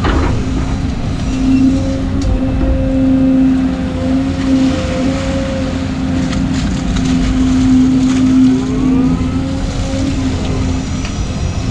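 Volvo 220 excavator working, heard from inside its cab: the engine and hydraulics run steadily under load as the bucket digs and lifts a load of mud, with a few rising whines about eight seconds in.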